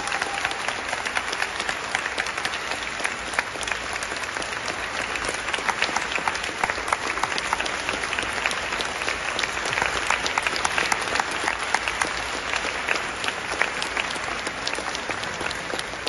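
Audience applauding in a concert hall, a dense steady clapping that eases off slightly near the end.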